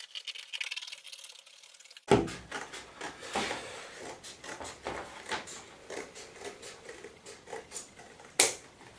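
Scissors cutting through thick card: a run of irregular snips and clicks, one sharp one near the end.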